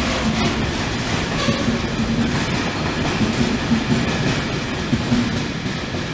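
A train of autoballaster hopper wagons running past at speed: a steady rumble with wheels clattering on the rails, easing slightly near the end.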